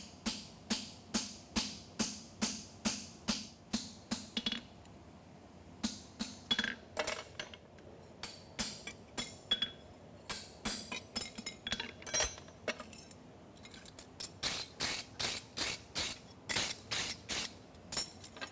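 Hand hammer striking a fullering tool and a nail punch held on a hot steel horseshoe on an anvil, about two to three ringing blows a second, while the nail crease is refullered and the nail holes are punched. The blows thin out in the middle and pick up again in a steady run near the end.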